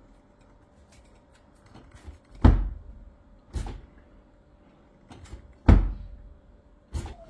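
A Bosch dishwasher being handled by hand, its door and fittings knocking: two loud thumps a few seconds apart, with lighter knocks and clicks between them and near the end.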